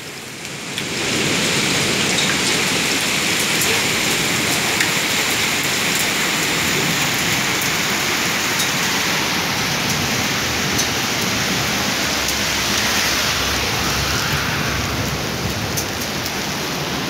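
Hailstorm with heavy rain pelting down: a dense, steady hiss with scattered sharp ticks of hailstones striking.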